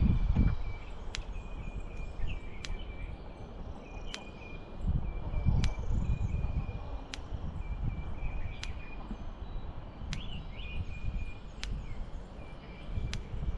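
Outdoor ambience: gusts of wind rumbling on the microphone, a high, broken trill running steadily underneath, and a sharp tick about every second and a half.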